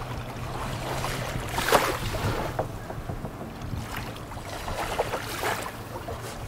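A rope knot being tightened by hand: a few short rustles and scrapes of rope being pulled, about two, four and five seconds in, over a steady low hum.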